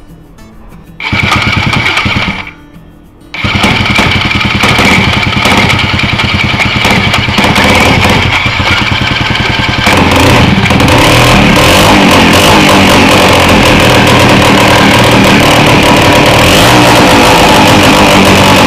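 Small two-stroke water-pump engine starting: it runs about a second in, stops after a second and a half, then catches again and keeps running, louder from about ten seconds in.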